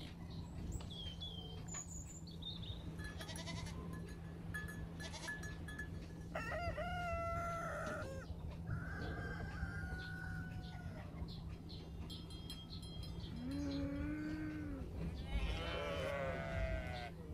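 Goats bleating: about four drawn-out calls with pauses between, over a steady low hum.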